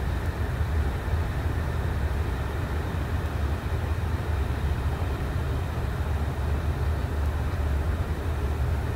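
A steady low rumble with a fainter hiss above it, unchanging, with no distinct events.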